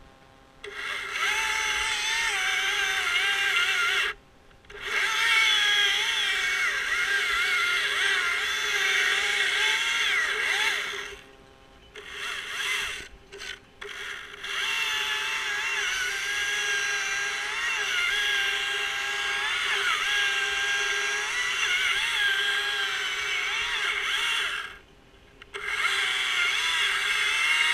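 Two-stroke chainsaw at high revs cutting off pine limbs, its pitch dipping and wavering as the chain bites. It cuts out briefly about four seconds in, again for a couple of seconds around the middle with two short revs, and once more near the end.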